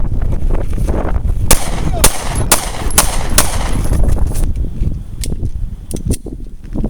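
Pistol shots from a firing line: five sharp shots about half a second apart, then a few fainter, scattered shots near the end. Wind rumbles on the microphone throughout.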